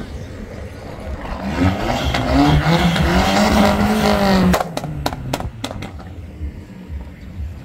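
Car engine revving up, held briefly, then cut off abruptly, followed by a quick run of about six sharp pops.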